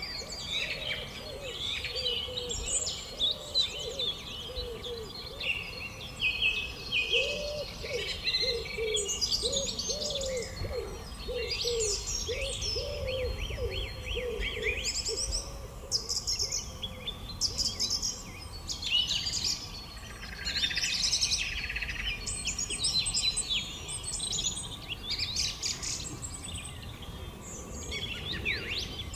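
Several birds singing and chirping at once, with a lower call repeated over and over through the first half.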